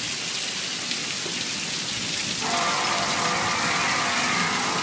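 Steady hiss of rain, then about halfway through a loud, long, trumpet-like blare with several steady tones comes in and holds: the unexplained 'trumpets in the sky' sound.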